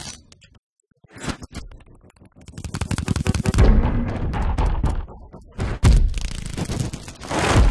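Sound-design effects of a Dolby Atmos logo trailer: a fast flurry of sharp clicks and ticks building up, then deep heavy hits about halfway through, again a little later, and near the end.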